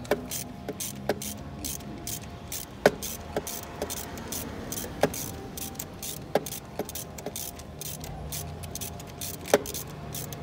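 Hand-tool work at a motorcycle cylinder head around the spark plug: about ten sharp metallic clicks and taps, each ringing briefly, with many faint quick ticks between them.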